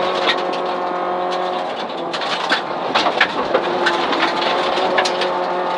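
2004 Mitsubishi Lancer rally car's engine running at speed on a gravel road, heard from inside the cabin, with loose gravel clicking and pinging against the car. The engine note dips about two seconds in and picks up again about a second and a half later.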